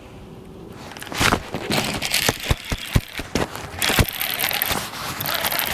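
Sharp clicks, knocks and scraping clatter from about a second in, as an angler reels in and lands a small bass from the deck of a bass boat.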